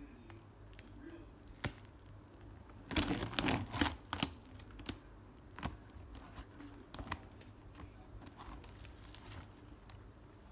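Plastic wrap and packing tape crinkling and tearing on a cardboard shipping box, in a dense crackling burst about three seconds in. Scattered scrapes and taps follow as the cardboard box is handled and turned over.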